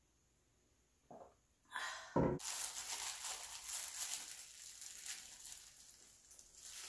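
Thin disposable plastic glove crinkling and rustling as it is pulled on and worked over the hand. A heavy thump about two seconds in, likely the glass beer mug set down on the table, comes just before the crinkling starts.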